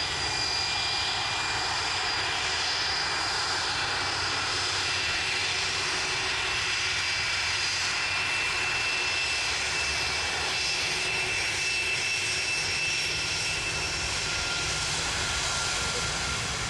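Airbus A330-300's twin jet engines running steadily: a loud rush with high whining tones, one of which rises slightly near the end.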